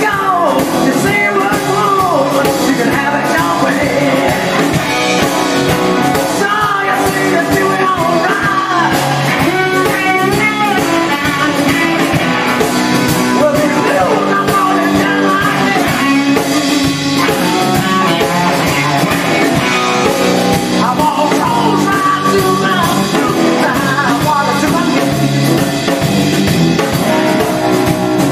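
A song: a singing voice over guitar-led instrumental backing.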